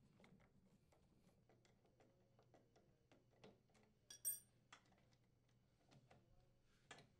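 Faint ticks and clicks of a screwdriver and wrench working the bolts that hold a snowblower's auger blades, with one louder, briefly ringing metallic clink about four seconds in.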